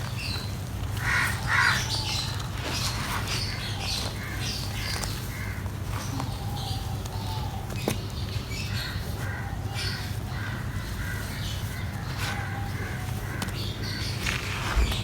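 Dry mud crumbling, with scattered short crackles. Birds call repeatedly over it with short pitched calls, and a steady low hum runs underneath.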